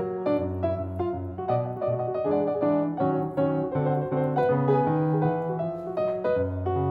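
Background piano music, a steady stream of notes.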